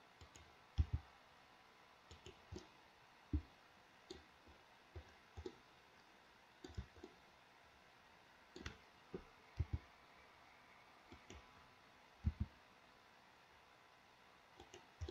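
Quiet computer mouse and keyboard clicks, single and in pairs, coming irregularly every second or so.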